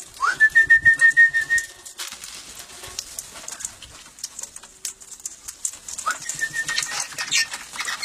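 Parrots squawking and chattering while being hand-fed. Two loud whistles rise and then hold a trilling note: the first lasts about a second and a half, and the second, shorter one comes about six seconds in.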